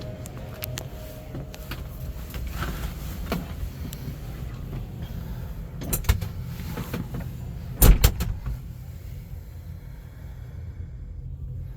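Kawasaki Ridge side-by-side's steady low rumble, with several sharp clunks and knocks; the loudest comes about eight seconds in.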